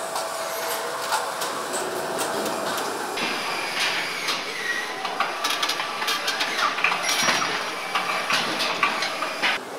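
Car assembly-line noise: metal parts and tools clinking and knocking at irregular intervals over a steady machinery hum, with a faint steady tone in the first few seconds.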